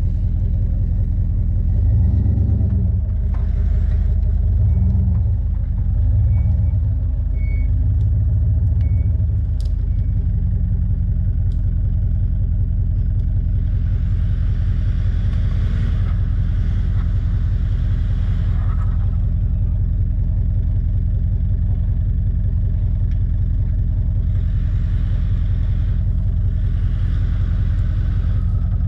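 Pickup truck engine running low and steady as the truck crawls up a rutted dirt track. It swells a few times in the first ten seconds, and a rushing hiss comes in about halfway and again near the end.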